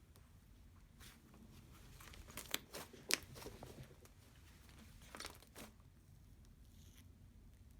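Slime being stretched and squished by hand, giving faint sticky pops and crackles, in a cluster about two to three and a half seconds in and a few more near five seconds.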